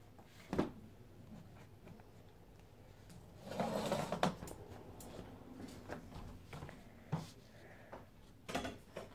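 Pen drawing on a sheet lying on a stack of paper: quiet scratching and rustling of paper, with a few soft knocks, one about half a second in and two more near the end, and a longer rustle around four seconds.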